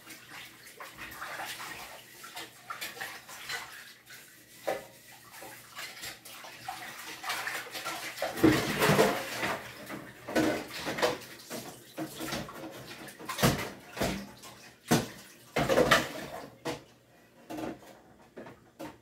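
Dishes and a pot being washed under a running tap at a kitchen sink: a steady rush of water with scattered clatters and knocks as they are handled, loudest in the middle and near the end.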